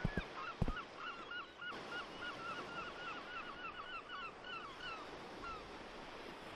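A bird calling in a rapid run of short, repeated notes, about four a second, which stops about five seconds in, over faint outdoor ambience. Two sharp knocks sound in the first second.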